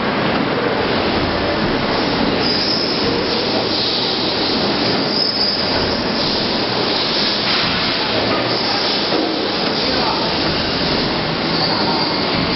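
Automatic roller-feed die-cutting press running while it feeds foam sheet on its conveyor: loud, steady machine noise with a high squeal that comes and goes.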